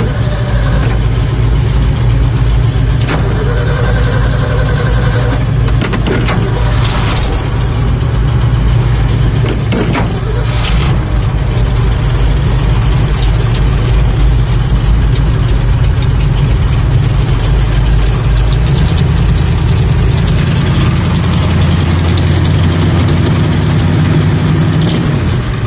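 1966 Ford F100's engine running steadily on choke shortly after a cold start; its note changes about eighteen seconds in.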